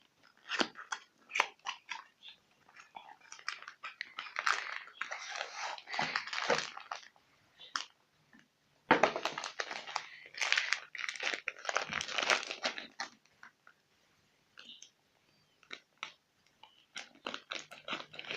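A Kinetic Sand package being opened by hand: crinkling and rustling of the wrapping with sharp clicks and snaps. It comes in several bursts with short pauses between.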